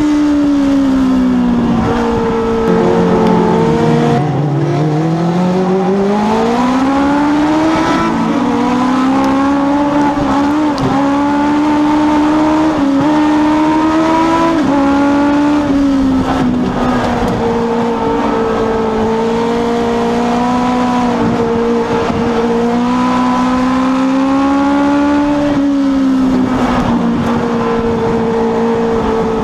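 Legends race car's Yamaha four-cylinder motorcycle engine running at racing speed, heard from inside the cockpit. The note drops steeply about four seconds in as the driver lifts for a turn, climbs back, and then holds high with shallower dips on the later turns.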